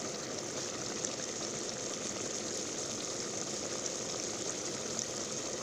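Chicken curry cooking in a pot: a steady sizzling, bubbling hiss with no break.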